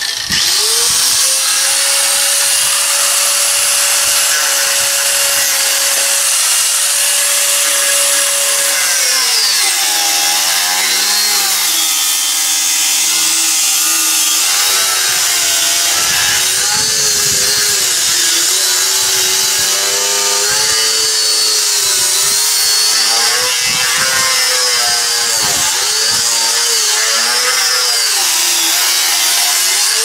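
Electric angle grinder spinning up and running free with a steady whine, then from about nine seconds in cutting into a wooden log, its pitch dropping and wavering as the disc bogs under load.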